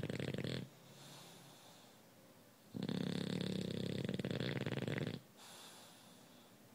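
A sleeping bulldog snoring: a long rattling snore ends about half a second in, and another runs for about two and a half seconds through the middle, with quieter breathing between them.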